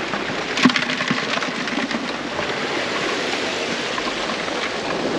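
Surf washing over shoreline rocks, a steady rushing hiss, with a few sharp clicks and knocks about a second in.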